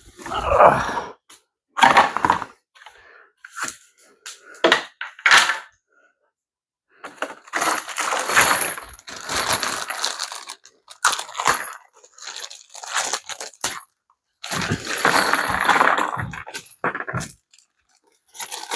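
Plastic pool-ladder parts and their packaging being handled: scattered knocks and clicks, with two longer stretches of rustling about halfway through and again near the end.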